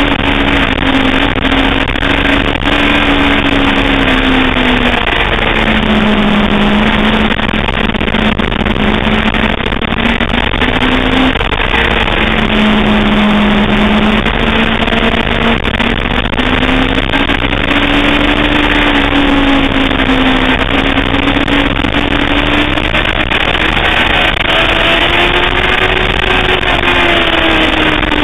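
Sportbike engine running hard on track, its note falling and rising slowly several times as the rider rolls off and back on the throttle. A dense, even rush of wind noise lies over it, heard from on board.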